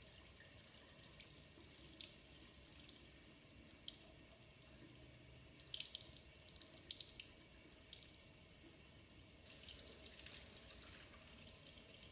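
Cold tap water running faintly over a hot glass flask into a lab sink, cooling it, with a few small sharp splashes around six seconds in and a little more flow from about nine and a half seconds.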